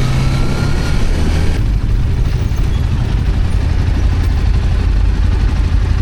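Hero Hunk 160R 4V motorcycle being ridden, its engine running under a steady, loud low rumble of wind and road noise.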